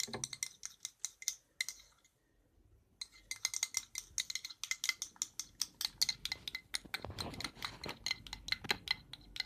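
A teaspoon stirring salt into thick liquid soap, clinking quickly and repeatedly against the side of the container. The stirring stops for about a second around two seconds in, then starts again.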